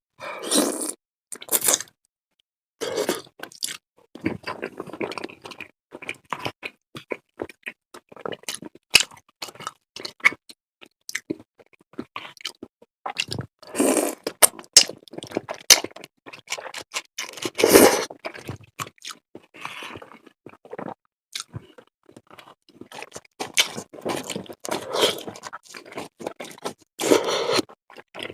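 Close-miked eating of curry udon and takoyaki: chewing, wet mouth clicks and smacks, with a few louder noisy bursts of about a second each.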